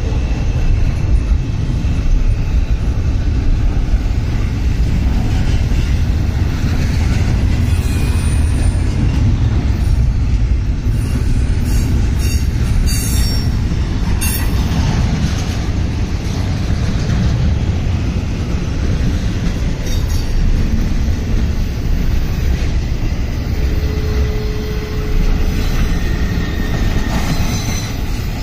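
Intermodal freight train of stacked containers and trailers rolling past: a steady loud rumble of wheels on rail, with a few brief faint wheel squeals.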